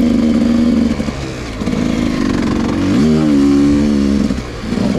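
Dirt bike engine running under throttle. It eases off about a second in, picks up again, rises in pitch as it accelerates around three seconds in, and backs off near the end.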